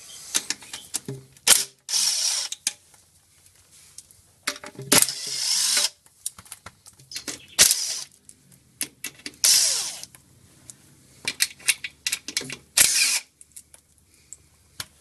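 Cordless impact driver running in about seven short bursts, spinning out the 10 mm M6 transmission pan bolts one after another, with sharp clicks and clinks of socket and bolts between the bursts.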